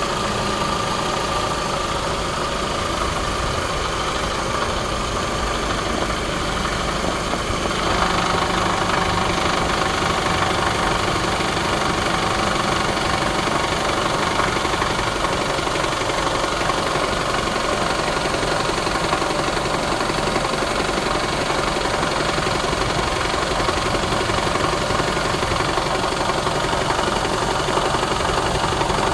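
2017 Toyota Camry SE engine running with a rattle of unknown cause, one that new engine mounts and a new belt tensioner have not cured. It gets louder about eight seconds in.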